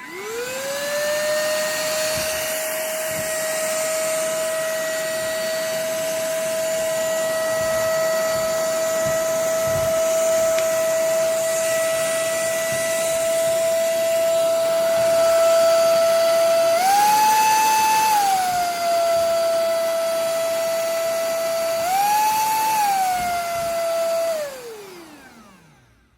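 AYONTIN cordless handheld vacuum switched on: its motor spins up to a steady whine with the rush of suction air, rises briefly in pitch twice, then is switched off and winds down with falling pitch near the end.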